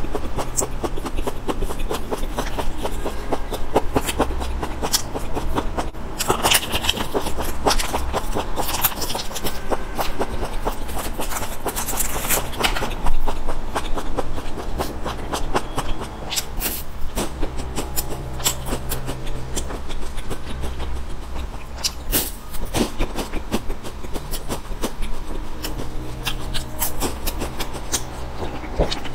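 Close-miked snack eating: plastic snack wrappers crinkling and tearing, and a crunchy sesame stick being bitten and chewed, in a dense run of crackles and scratchy clicks with a few louder crunches.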